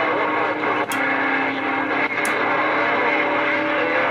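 Static and band noise from a Galaxy CB radio's speaker, with a steady tone and faint warbling signals running through it. Two short sharp clicks come about one and two seconds in.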